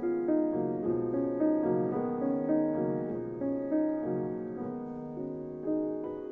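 Background piano music: a melody of held notes changing about twice a second.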